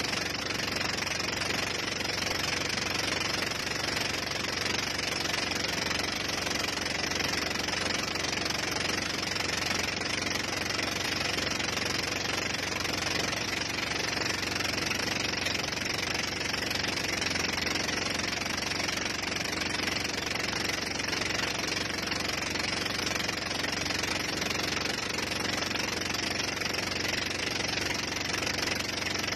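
Motor of the boat towing a banana boat, running steadily at speed and heard from on board, with a constant rushing noise of wind and water over it.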